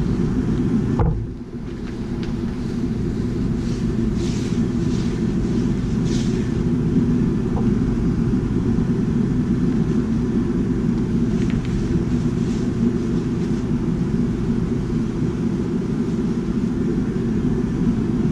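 Propane turkey-fryer burner running steadily under a steel disco wok: a low, even rumble, with a brief dip about a second in. Faint scratches of a paper towel wiping the wok come over it a few times.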